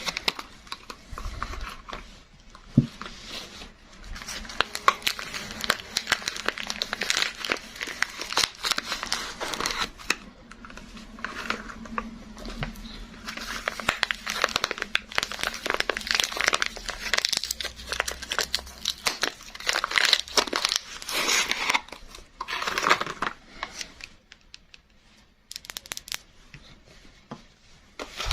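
Soap wrappings being crinkled and torn open by hand, a dense run of crackling and rustling with a brief quieter lull near the end.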